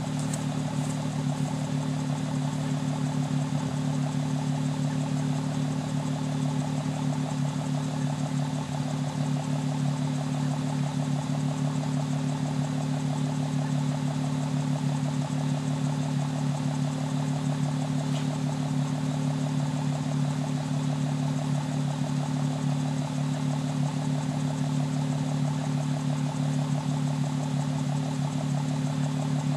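Fourth-generation Nissan Maxima's V6 engine idling steadily at the exhaust while it burns off Seafoam engine cleaner.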